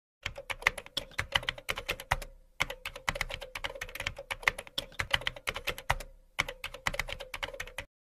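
Computer keyboard typing sound effect: rapid keystroke clicks at about six a second, in three runs separated by two short pauses, over a faint steady hum.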